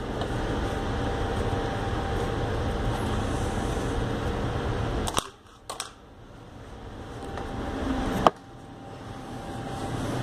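Breakdown raft paddles being handled. A steady noise runs until about five seconds in, then breaks off with a few small clicks, and a single sharp click comes a little after eight seconds.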